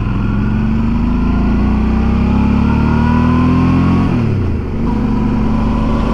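Motorcycle engine pulling up through the revs, its pitch rising for about four seconds. The revs then drop briefly with a gear change and it carries on at a steady pitch, with road and wind noise underneath.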